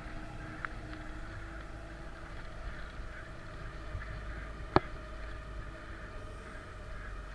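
Wind buffeting the microphone and rolling noise while riding a bicycle on a forest track: a steady low rumble, with one sharp click about five seconds in.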